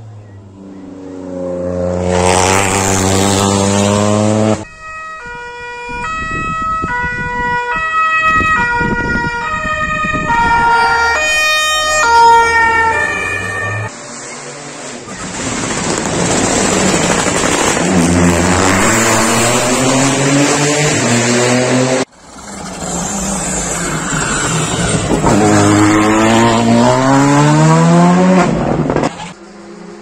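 Rally cars driven flat out in several short cuts, engines rising in pitch as they accelerate hard, with a stretch of engine and tyre noise through a roundabout. In the middle comes a run of held tones jumping up and down in pitch every half second or so, loudest about twelve seconds in.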